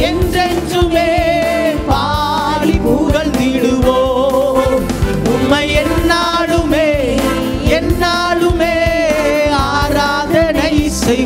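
Tamil Christian worship song: voices singing a slow, sustained melody over instrumental accompaniment.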